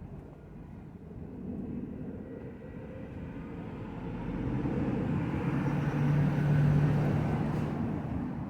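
A motor vehicle passing: engine and road noise builds, peaks with a steady low hum about six to seven seconds in, then fades away.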